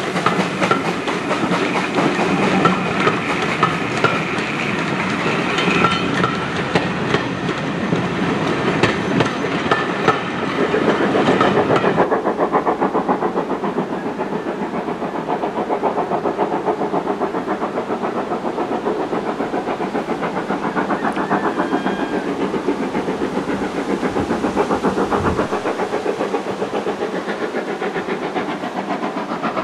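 Steam-hauled passenger coaches rolling past, wheels clicking over the rail joints amid steam hiss. About twelve seconds in this gives way to the steady, even beat of a steam locomotive working a train.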